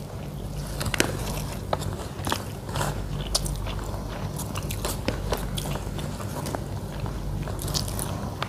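A person chewing and biting food close to the microphone: irregular crunchy clicks and smacks from a meal of rice and fried tempe with sambal, over a steady low hum.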